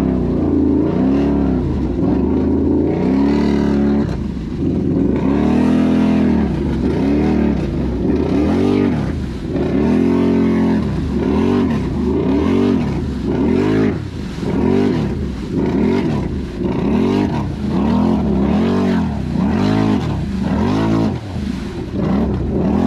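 Can-Am Renegade XMR 1000 ATV's V-twin engine, fitted with an SLG megaphone exhaust, revved up and down again and again. The revs rise and fall in quick arcs, about once a second through the second half.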